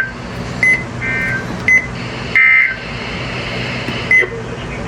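NOAA Weather Radio end-of-message data bursts: short buzzy digital bursts about 1.3 seconds apart, signalling that the severe thunderstorm warning message is over. Between them come a few very brief blips, over a steady radio hiss and hum.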